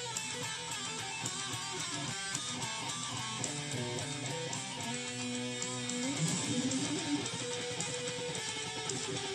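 Electric guitar played through a Roland Micro Cube amp, improvising lead lines over a backing track: a quick run about two seconds in, then long held notes bent up and sustained in the second half.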